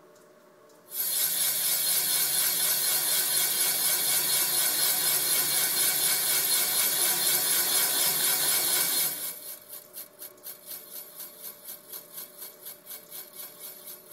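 A metal-cutting tool scraping into a Honda B18 block to cut the groove for stainless O-ring wire. The cut starts about a second in and runs loud and rasping for about eight seconds, then drops to a softer scrape pulsing about three times a second.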